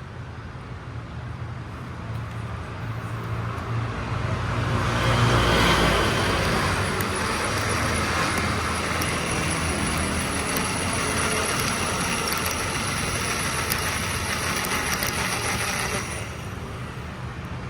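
Electric drill running under load while drilling; it comes in over the first few seconds and cuts off suddenly near the end, over a low steady hum.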